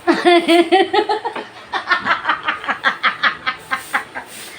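A woman laughing: a quick run of ha-ha pulses, about six a second, loudest in the first second and a half, then continuing in softer pulses until it fades about three and a half seconds in.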